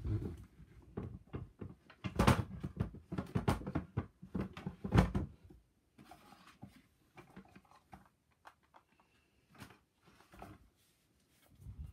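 Objects being handled and rummaged through at close range: a busy run of knocks, rustles and clatters, loudest from about two to five seconds in, then scattered quieter clicks and taps.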